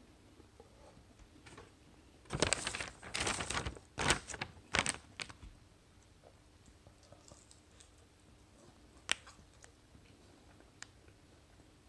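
Crinkling and rustling of handled food packaging for about three seconds, followed by a couple of sharp clicks.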